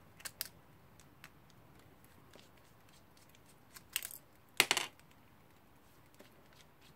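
Small metallic clicks and clinks of a screwdriver and screws working on a brass alarm-clock movement, with a louder, ringing metal clink about four and a half seconds in.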